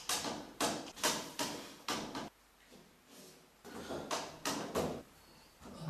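A person's body shifting inside a clear plastic tube: a string of short rubbing and knocking sounds against the plastic, in two clusters with a pause of about a second between them.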